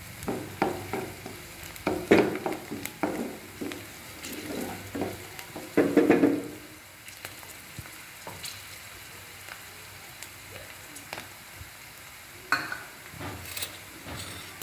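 Sliced onions and green chillies frying in oil in a nonstick kadai, being sautéed toward golden brown. For the first several seconds they are stirred and scraped around the pan in repeated strokes, then they sizzle steadily on their own.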